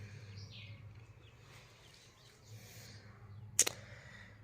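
Quiet background with a steady low hum, a faint bird chirp about half a second in, and a single sharp click near the end.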